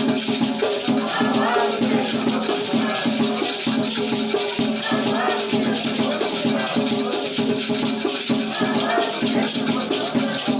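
Batuque ritual music: drums beating a steady rhythm while a shaker rattles continuously, with voices singing over them.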